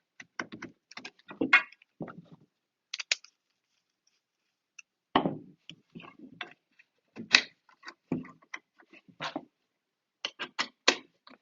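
Irregular clicks and knocks of a clamp being slid onto a telescopic pole section and handled, with a quiet pause about halfway through.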